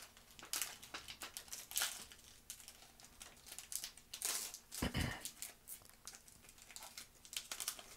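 Foil Pokémon TCG booster pack wrapper crinkling and being torn open by hand: irregular crackles throughout, with a louder burst about halfway through.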